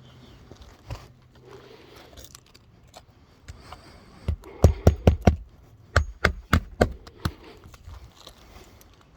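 Hammer blows on roofing nails, two quick runs of about five strikes each about a second apart, with lighter scraping before them.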